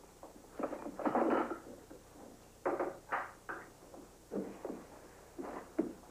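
A run of knocks and wooden clatters, about seven in all, spread over the few seconds: a wooden door being opened and things being handled.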